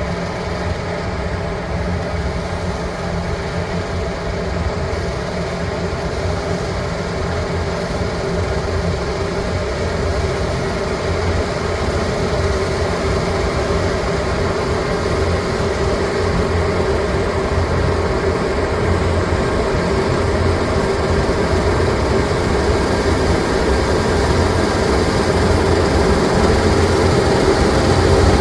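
New Holland combine with a MacDon FD240 draper header running while harvesting soybeans: a continuous machinery drone with several steady hums, gradually getting louder.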